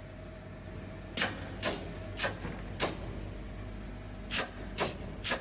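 Pneumatic clamp on a rotary CNC router being worked, giving seven short hisses of air, each a fraction of a second long and about half a second apart, over a faint steady hum.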